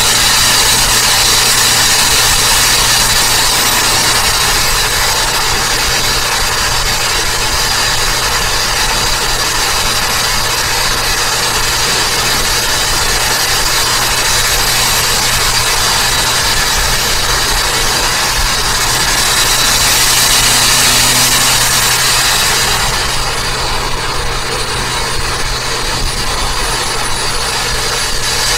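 Turbocharged Toyota Avanza driving at speed: steady engine, tyre and wind noise with a strong hiss, a low hum and a faint high whistle that drifts up and down. The hiss eases for a few seconds about two-thirds of the way through.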